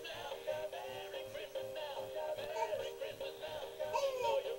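Animated plush dog toy in a Santa hat singing a song through its built-in speaker: a recorded voice carrying a melody over held accompaniment notes.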